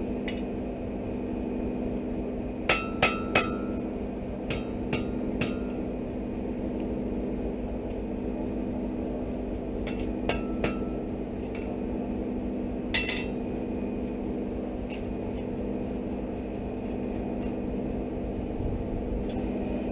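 Blacksmith's hammer striking a hot iron fire poker on an anvil in short groups: three quick metallic blows, then three more, then a few spaced single strikes, over a steady low hum.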